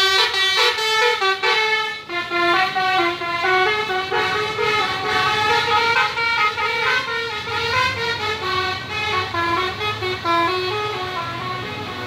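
A bus's telolet basuri horn, a multi-tone musical air horn, playing a fast tune of short notes that step up and down without a break.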